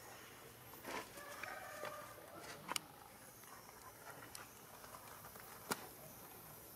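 Faint, wavering animal calls for a second or two, beginning about a second in, over a quiet outdoor background. Two sharp clicks cut through, one about three seconds in and a louder one near the end.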